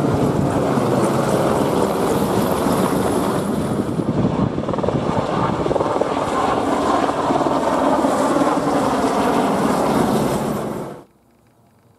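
Westland Sea King helicopter flying low overhead: a loud, steady rush of rotor and engine noise. It cuts off abruptly about eleven seconds in.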